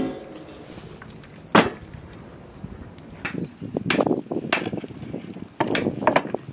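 Knife chopping on a wooden cutting board: irregular single strikes, one about a second and a half in, then a run of strikes through the second half.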